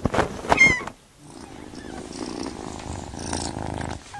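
A few quick whooshes and clicks in the first second, then a grey Scottish Fold kitten purring steadily.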